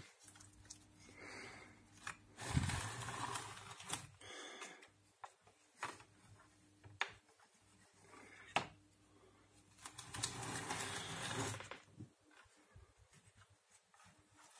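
3D-printed plastic R2-D2 dome mechanism being handled: its parts scrape and rattle in two longer stretches, with several sharp clicks between them.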